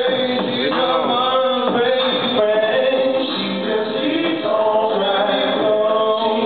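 Male vocal trio singing in harmony into microphones, several voices holding and shifting sustained notes together.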